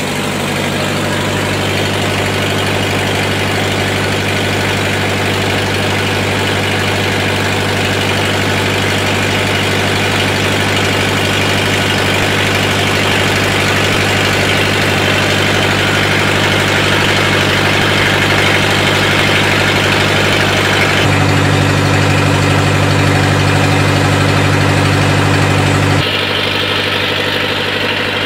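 Lister HA4 four-cylinder air-cooled diesel generator running steadily without a muffler. About two-thirds of the way through, its low sound grows louder and deeper for about five seconds, then drops back.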